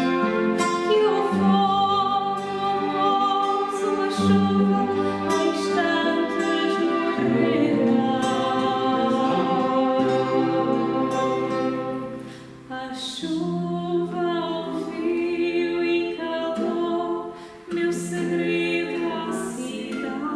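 A woman singing a fado song, accompanied by guitars and violin.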